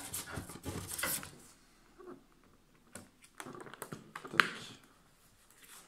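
Handling noise of a fabric windmill petal being fitted onto its rod: rustling and light plastic clicks, with one sharp click about four and a half seconds in.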